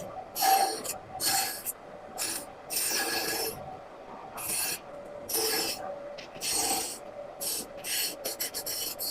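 A hand tool scraping and cutting wood in repeated strokes, about one a second. Near the end the strokes become short and quick.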